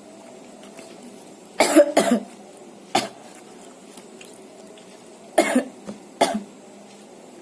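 A woman coughing in short, sharp fits, about five coughs in all, in a pair, then singly, while eating spicy chili sambal; the coughing is set off by the chili's heat.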